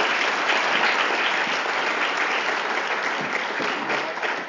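An audience applauding steadily, the dense clapping of a full hall.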